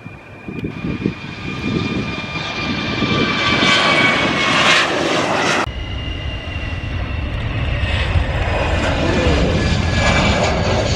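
Twin-engine jet airliners at takeoff thrust: a steady engine whine over a rumble builds as the first jet lifts off and climbs. A little past halfway the sound cuts off suddenly, and an Airbus A320 taking off follows, with a deeper rumble under its whine.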